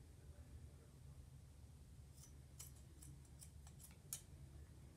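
Scissors snipping through a sock: a quick run of about seven faint, sharp snips in the second half, the last the loudest, over a low steady room hum.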